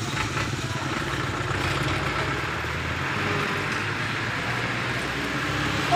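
Engine running steadily at idle, a low, even, pulsing hum throughout.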